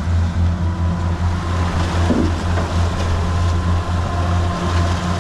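Boat engine running steadily, a low even drone with a faint steady whine above it.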